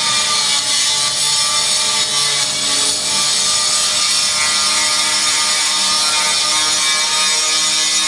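Power tool cutting steadily, a continuous whine over a loud hiss.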